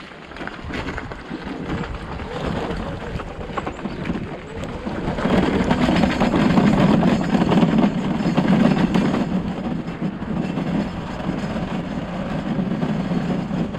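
Riding noise on a three-wheeled electric chopper over a wet dirt track: wind on the microphone and tyres rumbling on the rough surface, a steady rushing noise that grows louder about five seconds in as it picks up speed.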